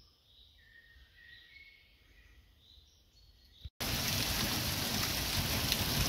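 Faint birdsong in a quiet wood, then, after a sudden cut just under four seconds in, the loud steady noise of hail falling heavily onto grass and wet ground.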